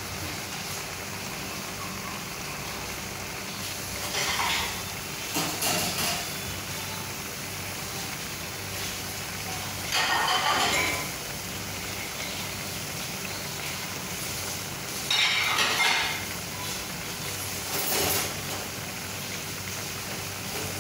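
Pan of bitter melon and egg simmering on a gas burner: a steady hiss with about five short, louder bubbling spurts, each a second or less.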